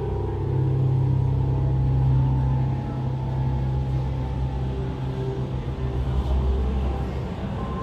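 Ambient installation music: a deep, steady low drone with faint held tones above it.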